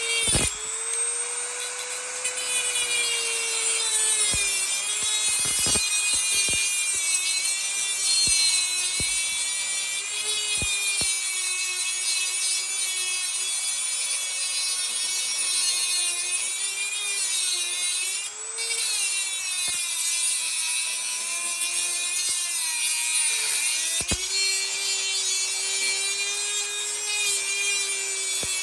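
Dremel rotary tool with a reinforced cut-off wheel grinding through a metal push nut cap on a wheel axle: a steady high motor whine over a gritty grinding hiss. The whine sags in pitch a few times as the wheel bogs under pressure.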